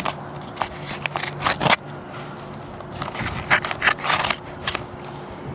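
A shipping package being torn and rustled open by hand: a run of short crackling, scraping noises of the packaging, the loudest about one and a half seconds in and again between three and a half and four seconds in.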